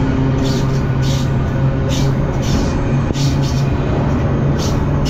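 Freight train rolling: a loud, steady rumble with a low hum underneath and irregular bursts of higher rushing noise.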